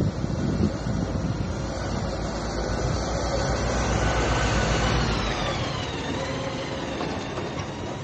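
A vehicle's motor noise with a whine that falls in pitch about five seconds in and then holds steady, over wind rumbling on the microphone.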